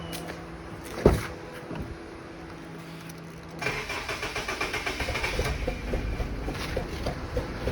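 Honda Civic FD's 1.8-litre four-cylinder engine: a sharp click about a second in, then from about three and a half seconds the starter cranks and the engine catches and runs rough with uneven pulsing, the shake of a misfire that the owner takes for a faulty ignition coil or spark plug, running on three cylinders.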